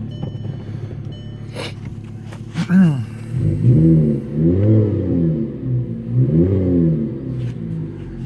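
2009 Volkswagen Jetta 2.5 L five-cylinder with a 2.5-inch cat-back exhaust, revved several times from idle. Each blip rises and falls in pitch, with about four in a row from roughly a third of the way in.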